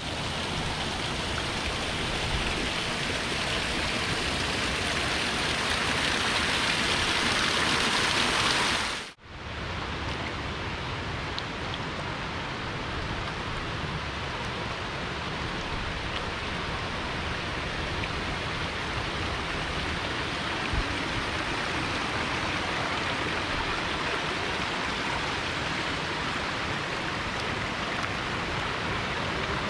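Small waterfall splashing over a rock ledge, growing louder over the first several seconds. After a brief break it gives way to a steadier, slightly quieter rushing hiss.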